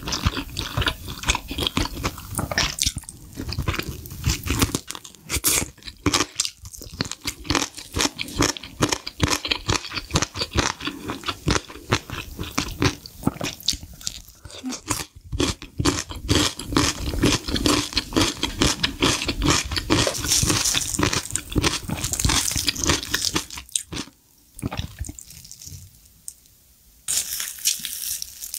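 Close-miked crunching and chewing of sauce-glazed fried chicken: a dense run of crisp bites and chews. Near the end, a crisp fried piece crackles as it is torn apart by hand.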